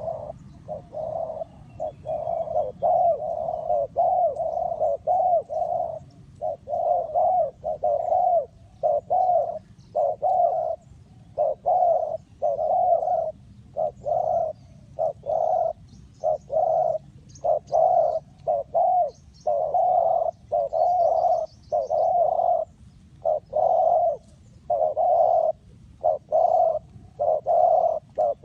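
Spotted dove cooing over and over: a steady run of short low coo phrases separated by brief pauses.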